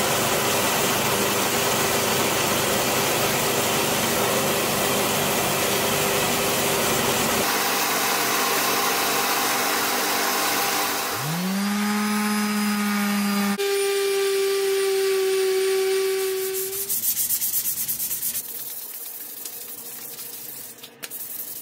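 Belt grinder running, its sanding belt grinding rust marks off a steel axe head and then sanding the hickory handle. About eleven seconds in, the grinder's motor winds up to speed with a rising whine. In the last few seconds there is quieter hand rubbing of abrasive on the wooden handle.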